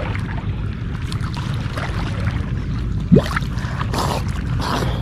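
Steady low rumble of a small boat under way on the water, with a short rising sound about three seconds in.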